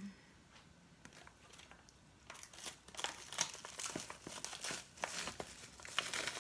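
Food packaging crinkling and rustling as it is handled, starting about two seconds in after a quiet start.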